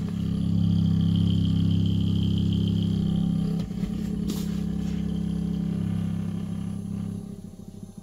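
Compressor of a portable 12 V 9-litre car fridge running with a loud, steady hum and buzz, the noise-and-vibration problem of this unit. A faint high whine sits over it for the first few seconds, a click comes about four seconds in, and the hum dies away just before the end.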